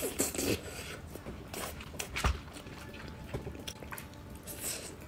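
Person biting into and chewing a tiger-skin chicken roll (meat wrapped in thin tofu skin), with irregular wet mouth clicks and smacks.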